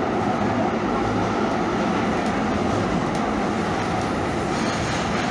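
Calgary CTrain light-rail car running along the track, heard from inside the car: a steady rumble of wheels on rail.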